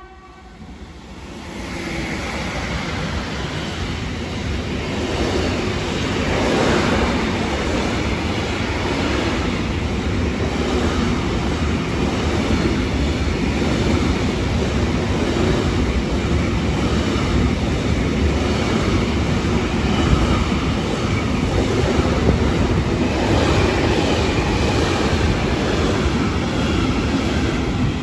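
Long electric-hauled intermodal freight train passing through at speed: a loud, steady rumble and clatter of the wagons over the rails, building over the first couple of seconds as the locomotive arrives and dropping away at the end as the last wagon goes by.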